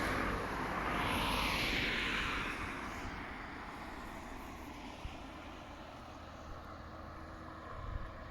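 An aircraft passing, loudest in the first two seconds and then fading into a low rumble.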